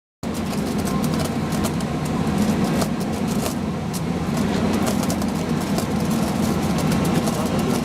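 Rail flash-butt welding machinery running: a steady mechanical drone with a low hum and dense crackling. It cuts in suddenly just after the start.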